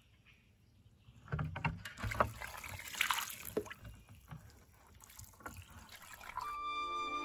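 Water splashing and trickling on a wet stone slab, with irregular small splashes and drips. Near the end it gives way to soft music with a flute-like melody.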